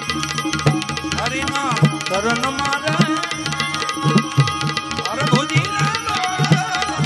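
Live Gujarati santvani devotional song: a man's voice sings long, wavering melodic phrases over a sustained harmonium and a steadily played tabla.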